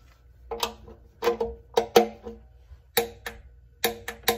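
Torque wrench ratcheting as it tightens the 19 mm transmission drain plug to 25 foot-pounds. About a dozen sharp metallic clicks at an uneven pace, each ringing briefly.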